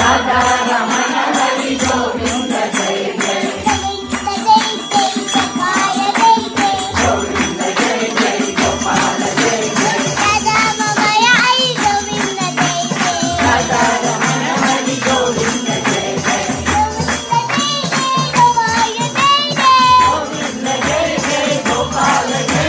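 A small child's voice singing a devotional bhajan into a microphone, with other voices joining in, over fast jingling hand percussion and a regular low beat.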